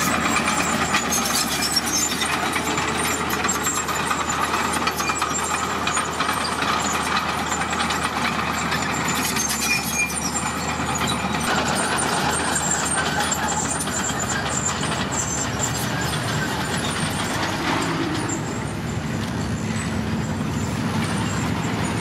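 Heavy diesel engines running steadily: a Komatsu D41PX crawler bulldozer and loaded dump trucks at work, with the sound changing character about halfway through.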